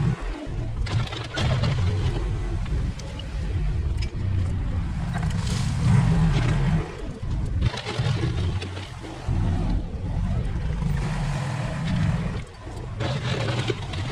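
Engine of an earth-moving machine working as it pushes dirt along a gravel forest road, a heavy low rumble that rises and falls with the load.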